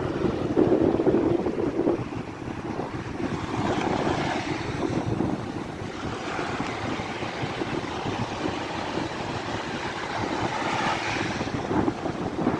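Wind noise on the microphone over shallow surf washing up and back across wet sand.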